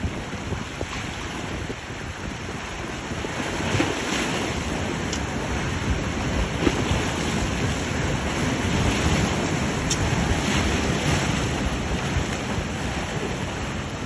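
Choppy inlet waves breaking and washing, with gusting wind buffeting the microphone.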